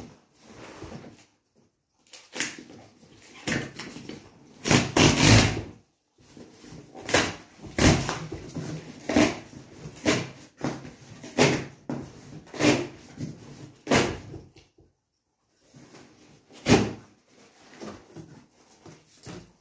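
Corrugated cardboard box being torn open along its tear strip, in a run of ripping pulls about a second apart, the longest and loudest about five seconds in, then a pause and one more rip near the end.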